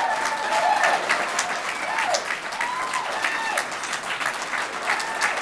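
A roomful of wedding guests applauding, with a few voices calling out over the clapping. The applause gradually dies down.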